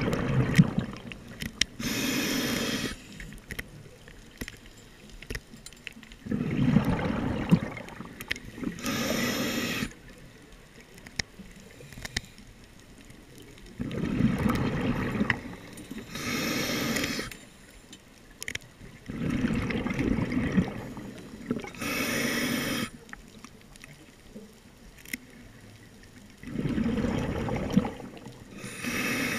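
Scuba diver breathing underwater through a regulator. Five breaths come about every six seconds: a rumble of exhaled bubbles lasting about two seconds, then a shorter hissing inhale.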